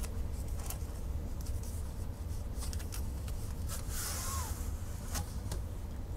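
A plastic shipping tube being handled and a rolled diamond-painting canvas worked out of it: scattered clicks and light scrapes, with a longer rustling slide about four seconds in, over a steady low hum.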